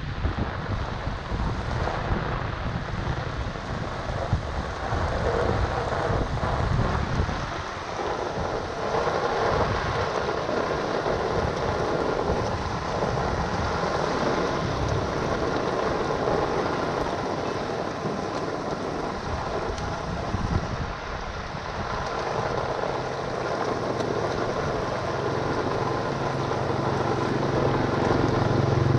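Rain falling on a wet street and water flowing into a kerb-side drain inlet as leaves are raked clear of it, with wind buffeting the microphone over the first several seconds. A low steady hum builds over the last few seconds.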